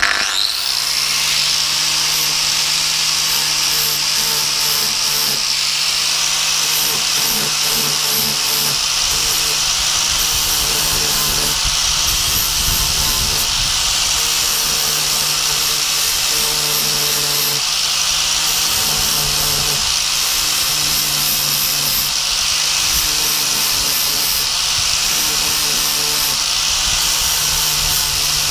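Angle grinder with a flap disc switched on abruptly, then running steadily while grinding the steel face of a hedge trimmer blade set flat to take out damage to the teeth.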